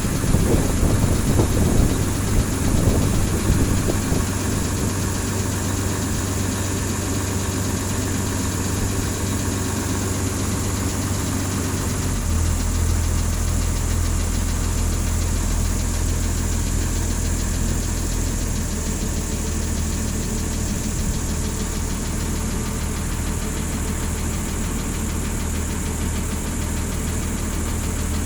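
A cross-river ferry's engine running steadily, with a low hum whose pitch settles to a new steady note about twelve seconds in.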